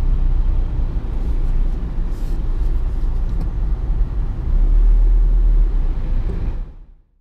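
A car's low, steady rumble, fading out to silence near the end.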